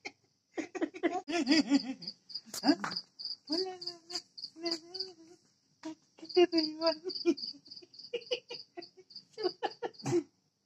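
A five-month-old baby laughing and cooing while an adult plays with him in a high, sing-song voice, over a cricket chirping steadily with fast, evenly spaced chirps.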